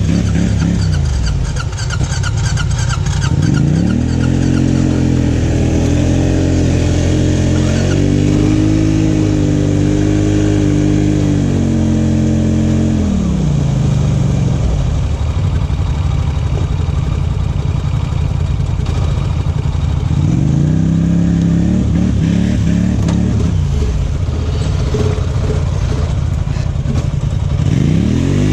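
Off-road vehicle engine revving up a few seconds in and holding high revs for about ten seconds before dropping back. It revs up briefly again about two-thirds of the way through and once more at the end.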